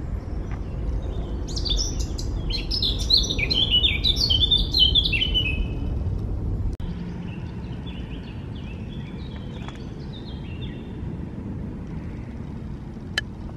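Woodland songbirds singing: a quick run of chirping notes from about one to six seconds in, then fainter song later, over a steady low rumble.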